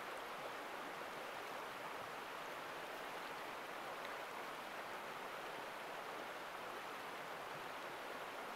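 A fast-flowing stream rushing over rocks, a steady, even rush of water.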